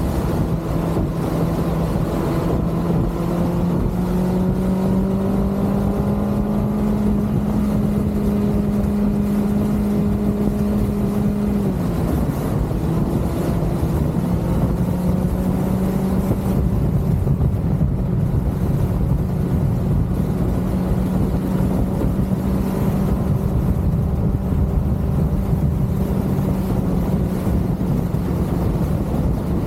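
Kawasaki ZX-6R's inline-four engine running at steady cruising revs under way, with wind rumble on the microphone. The engine note climbs slowly, drops suddenly about twelve seconds in, then holds steady.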